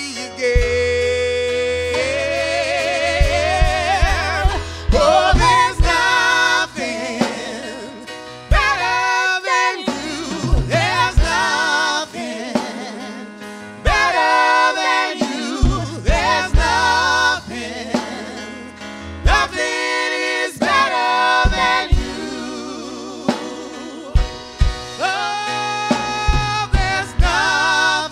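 Live gospel worship song: male and female voices singing, backed by keyboard and drums with regular kick-drum hits.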